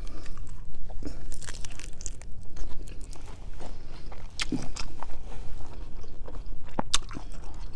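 Biting into and chewing a crisp romaine lettuce wrap, with crunches scattered through it: a cluster about one and a half seconds in and single sharper crunches around four and seven seconds in.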